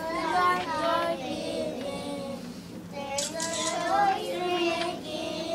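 Young children singing together, with a short break a little past two seconds in before the singing picks up again.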